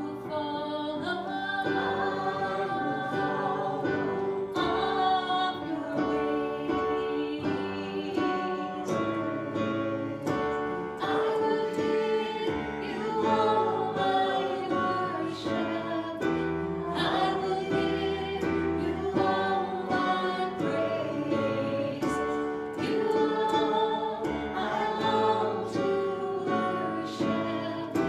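A group of voices singing a gospel hymn together, with instruments accompanying, in long held notes.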